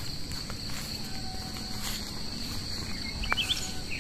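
Crickets chirping in a steady chorus, heard as one unbroken high note. A few short chirping calls come in near the end.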